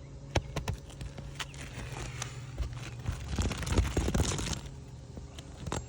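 Asphalt roof shingles being handled: a few sharp taps, then scraping and crinkling of the gritty shingle surface from about three to four and a half seconds in.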